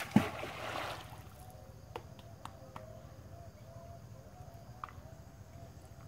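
A cast net landing on the river: a short rushing splash in the first second, then quiet water movement with a few small clicks.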